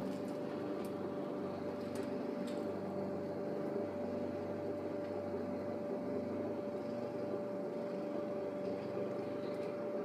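Condenser fan of a Carrier Performance Series central air conditioner still turning just after the unit shuts off: a steady, quiet hum with one faint held note.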